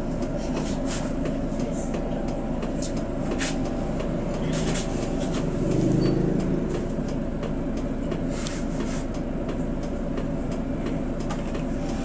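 Passenger train with a diesel locomotive running through a level crossing: a steady low rumble with scattered clicks, louder for a moment about six seconds in.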